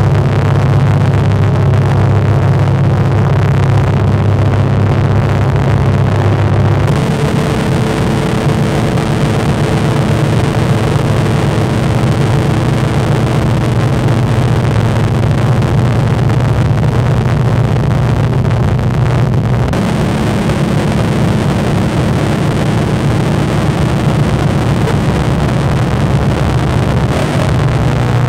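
Loud, dense droning soundtrack with steady, engine-like low tones held underneath; the low tones shift about 7 seconds in and again about 20 seconds in.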